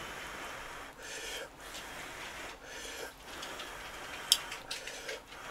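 Close-miked chewing of a mouthful of instant ramen noodles: wet mouth sounds that come in short spells, with one sharp click about four seconds in.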